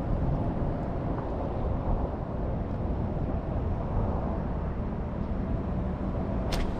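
Car engine idling, a steady low rumble, with a single sharp click near the end.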